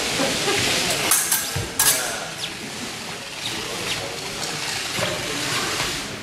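Épée bout in progress: fencers' footwork shuffling on the hall floor, with a few sharp clicks, the strongest about a second in and again just before two seconds.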